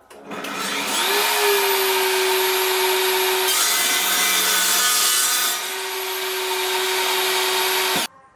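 Table saw starting up and rising to a steady whine, then the blade cutting through a wooden board on a crosscut sled for about two seconds from around three and a half seconds in, then spinning free again before the sound cuts off suddenly near the end.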